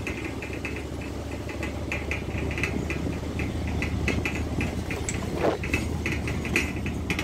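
A moving vehicle's engine hums steadily underneath rapid, uneven rattling and clicking as it rolls along a road, with a short falling squeak about five seconds in.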